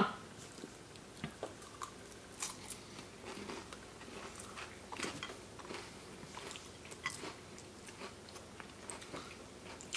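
People chewing crackers topped with vegan cheese, a faint scatter of small crisp crunches.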